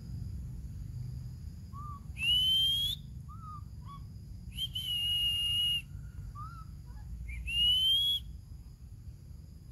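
Three loud, high whistles: the first and last rise in pitch and the middle one is held level for about a second, with a few short, soft chirps between them.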